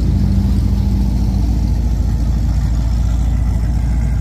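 Car engine running at low revs with a deep, steady rumble.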